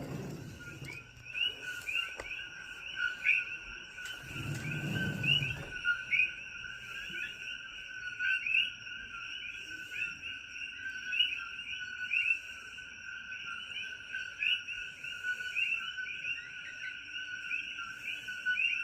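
A dense night chorus of many coqui frogs calling over one another, each giving its rising two-note "co-qui", over a steady high insect drone. A brief low rumble comes about four seconds in.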